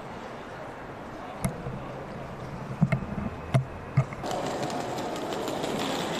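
Outdoor city ambience: a steady background hum broken by a few sharp knocks, about a second and a half, three, three and a half and four seconds in. A little past halfway it changes to a louder, fuller wash of city noise.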